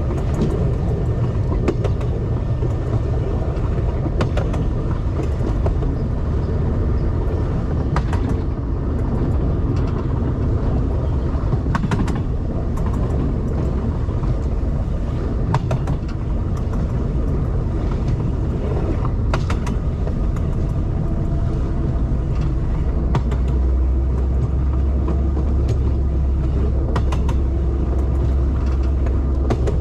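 A moving vehicle running steadily, a continuous rumble with frequent irregular clicks. The deep part of the rumble grows stronger about three quarters of the way through.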